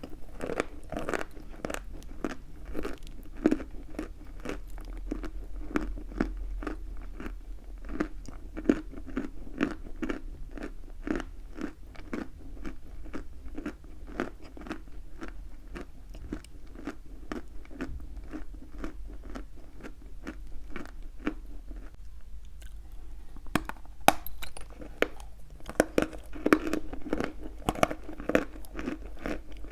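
Chalk being chewed, close to the microphone: a steady run of sharp crunches, several a second, with a short pause about three-quarters of the way through before louder crunching resumes.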